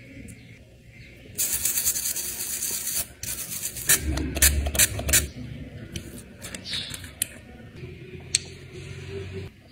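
A pump spray bottle hissing in two long sprays onto the foot, with sharp clicks near the end of the second, followed by scattered light taps and clicks of glass nail-polish bottles being handled.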